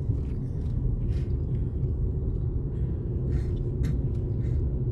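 Steady low road and engine rumble inside a moving car on a narrow mountain road, with a faint steady hum and a few light ticks from the road surface.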